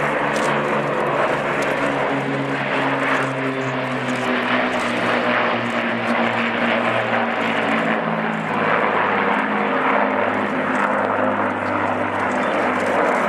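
Avro Lancaster bombers flying past, their four-engined Rolls-Royce Merlin V12s running steadily. The engine note drops in pitch about eight seconds in as they go by.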